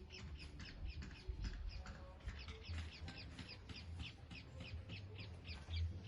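A bird calling in a long, even series of short, high, falling chirps, about four a second.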